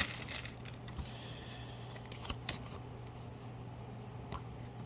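Trading cards handled and slid against each other: a few soft clicks and a light rustle over a faint steady hum.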